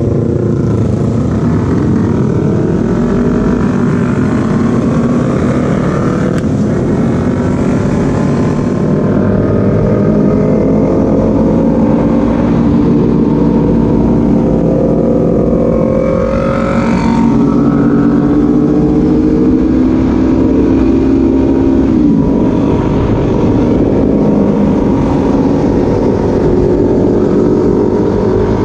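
Motorcycle engine running under way with heavy wind rumble. The engine note climbs slowly through long pulls and drops sharply about twenty-two seconds in.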